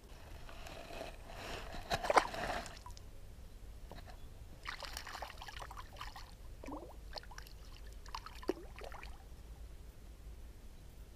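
Water sloshing and splashing as a small pike is put back into the shallows by hand, loudest about two seconds in. Scattered small splashes and drips follow.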